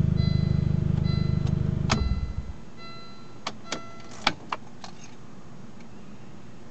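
Inside a 2000 Volvo S40, a loud steady low hum cuts off with a click about two seconds in, while a high warning chime beeps about once a second and then stops. A run of sharp clicks follows, the loudest a little after four seconds in.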